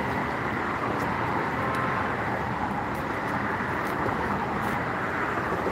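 Steady hiss of road traffic on the highway bridge alongside, with a few faint clicks.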